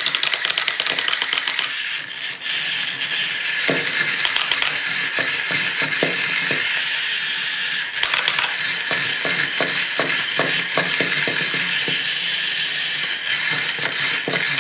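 Continuous rapid, irregular clicking and rattling over a steady hiss.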